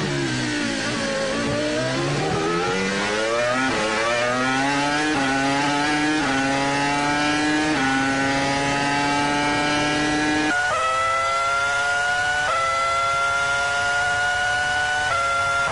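Onboard sound of 2005 Formula One 3.0-litre V10 engines. The Renault R25's engine falls in pitch under braking and downshifts through a corner, then climbs hard through a series of quick upshifts, each a step down in pitch. About ten seconds in, the sound switches to the McLaren MP4-20's V10 on a straight, rising steadily with two more upshifts.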